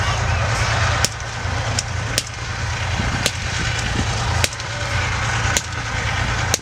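Single shots of blank small-arms fire, about seven cracks at uneven intervals, over a steady low rumble.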